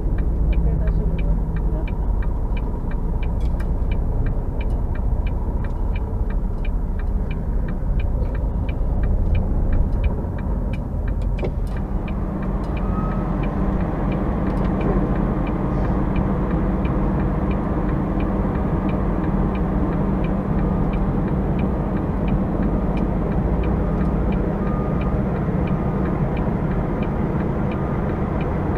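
Semi-truck diesel engine running steadily, heard from inside the cab while the truck backs into a parking space. A rapid, regular clicking, about three clicks a second, runs over it for roughly the first twelve seconds and then stops, leaving the engine rumble.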